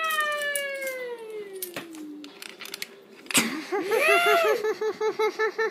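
A person's voice imitating a toy car's engine dying: one long whine falling in pitch and fading over about two seconds. About three and a half seconds in comes a fast stuttering vocal sound, about six pulses a second, with a rising-and-falling whine over it, like an engine being cranked that will not start.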